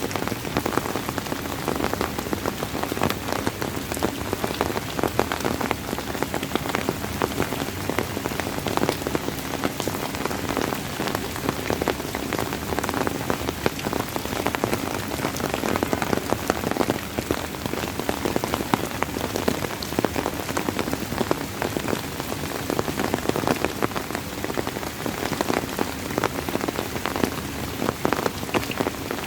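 Steady rain falling on a surface, a dense patter of many individual drops at an even level.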